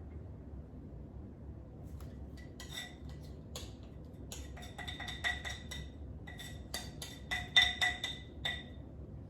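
Metal cutlery clinking against a dish: a run of light ringing clinks, bunched in two spells, the loudest near the end.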